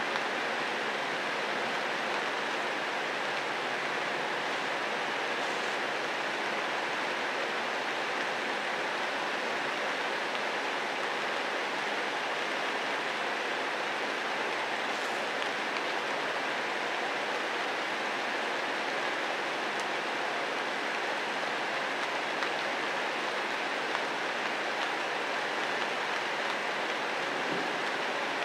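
Steady rain falling on foliage: an even hiss without breaks.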